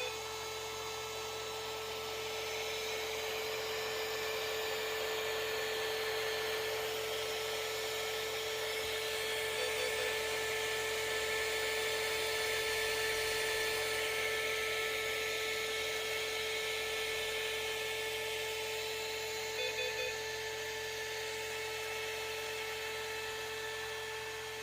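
Electric motors of a Lesu ET35 RC hydraulic excavator running steadily with a high whine. Short triple beeps sound near the start, about ten seconds in and about twenty seconds in.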